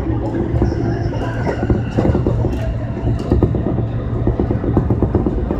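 JR Keiyo Line electric train running, heard from inside the carriage: a steady low rumble of wheels on rail with a dense patter of small clicks and rattles.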